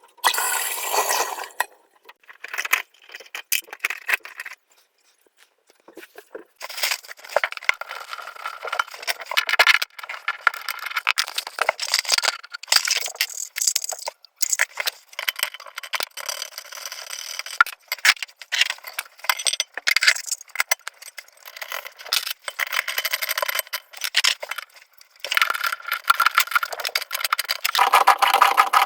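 Irregular rattling, scraping and clinking of parts being handled during a toilet tank repair, in short bursts with brief pauses.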